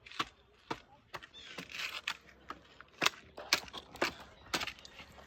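Dry sticks and leaf litter snapping and rustling: irregular sharp cracks, one or two a second, with a brushing rustle between them.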